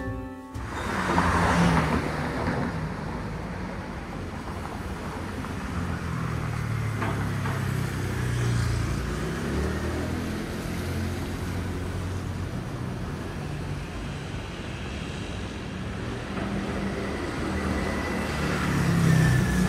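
City road traffic: cars passing on the street, a steady low engine rumble and tyre noise that swells louder about a second in and again near the end.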